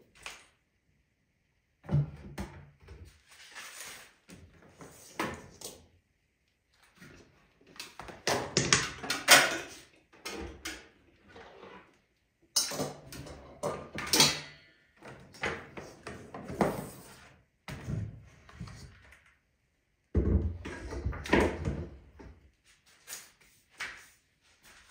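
Irregular knocks, clatter and thumps of kitchen items being handled and set down on a counter, coming in clusters with short pauses between them.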